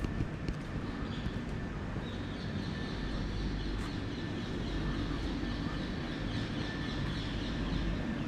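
Street ambience: a steady low city hum, with birds chirping from about two seconds in.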